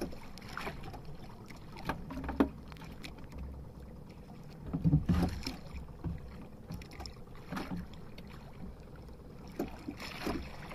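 Water lapping against a small outrigger fishing boat over a steady low rumble, with scattered short knocks and rustles as a fishing line is hauled in by hand and small fish are taken off it. The loudest knock comes about five seconds in.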